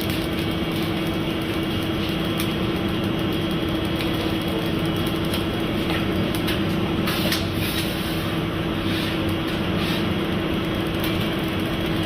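Machinery running with a steady hum and a constant mid-pitched tone, with a few light clicks about two and seven seconds in.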